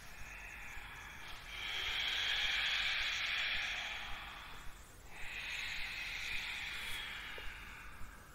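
Two long, deep breaths drawn and pushed through a slightly narrowed throat in the ujjayi manner, each an airy hiss lasting about three seconds, heard during sun salutation movements.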